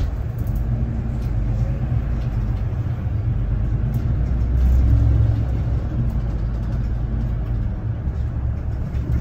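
Low-floor city bus driving, heard from inside its cabin: a steady low engine and road rumble that grows a little louder about five seconds in.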